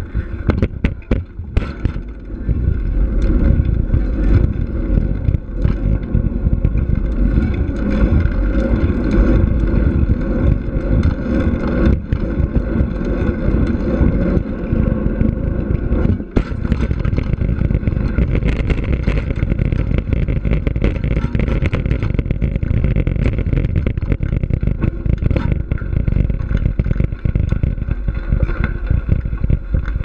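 Mountain bike riding: a steady low rumble from the tyres rolling over asphalt and then gravel, mixed with wind buffeting the action camera's microphone.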